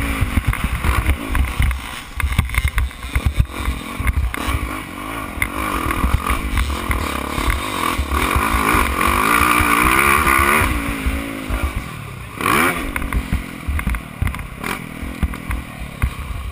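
On-board sound of a Yamaha YZ450F motocross bike's four-stroke single-cylinder engine revving up and down as the rider works the throttle and gears, with a strong rising rev about twelve seconds in. Heavy wind rumble on the microphone and knocks and rattles from the bike over the dirt run under it.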